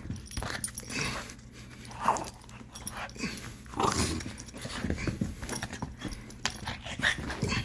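Boston terrier making short, excited vocal bursts while playing with a plush crab toy, with scuffling on the rug.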